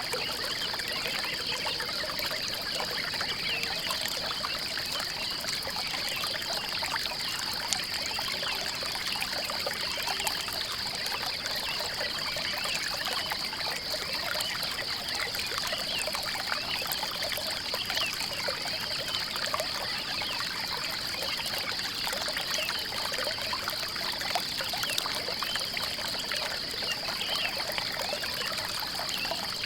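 Water trickling and pouring steadily over stones, with a continuous high-pitched, rapidly pulsing trill running unchanged beneath it.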